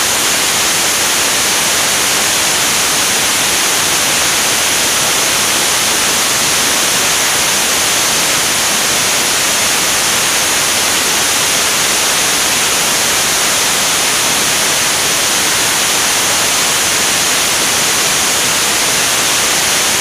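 Steady rushing slipstream hiss of air streaming past a wing-mounted camera at flight speed, even and unbroken, with no clear engine tone.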